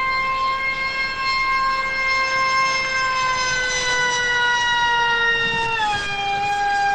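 Electric motor and propeller of a 6S-powered FPV flying wing at full throttle: a high-pitched whine that holds steady, sags slowly, then drops in pitch about six seconds in as the throttle is backed off.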